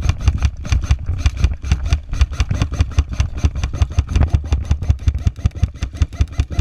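Airsoft rifle firing a long, steady string of rapid shots, about seven a second, each a sharp crack with a low thud of the gun's mechanism.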